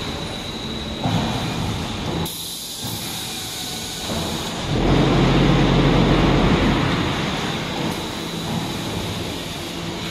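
Concrete block palletizer line machinery running: chain conveyors and motors make a continuous mechanical rumble and metallic rolling noise, with a thin steady high whine throughout. It grows louder for a couple of seconds in the middle, with a low hum.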